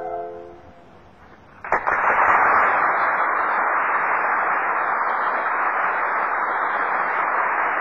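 A soprano's final held note dies away at the start, then about two seconds in a live audience bursts into steady applause, dull and muffled in an old band-limited live recording.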